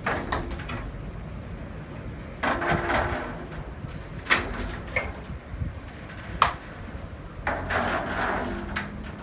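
Glass balcony-enclosure panels rolling and scraping along their track as they are slid open and shut, in three runs. Two sharp knocks in the middle are the loudest sounds, as panels strike one another or a stop.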